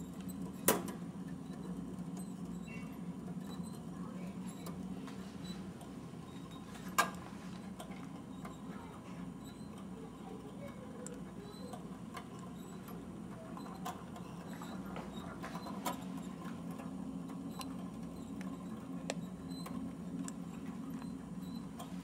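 Kinetico 3-Man Clock Junior kinetic clock mechanism running: light scratchy rattling and faint ticking of its moving parts over a steady low hum. Sharp clicks come about a second in and about seven seconds in, with softer ones later.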